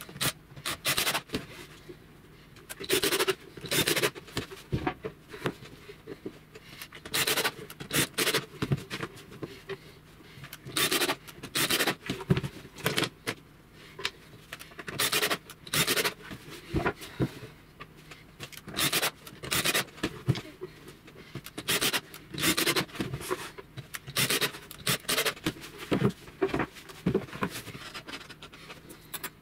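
Repeated short scraping and rubbing strokes on laminated plywood panels, coming irregularly a few every couple of seconds.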